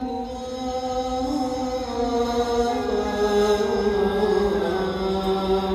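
A nasheed: a voice chanting in long held notes that slowly slide up and down in pitch.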